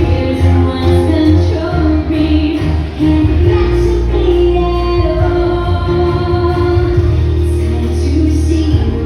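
A song with a high female singing voice over a heavy, steady bass line, playing continuously.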